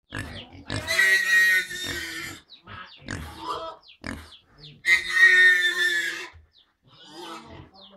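Young pigs squealing and grunting: two long, loud squeals, about a second in and again about five seconds in, with shorter grunts between and fainter ones near the end.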